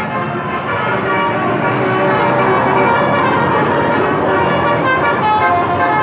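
Tour bus telolet horn playing a tune: a run of pitched horn notes stepping up and down, over the sound of passing traffic.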